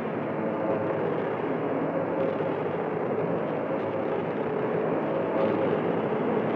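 Experimental noise music from a cassette: a dense, steady drone-like wash of noise with faint held tones inside it and no beat, muffled, with little top end.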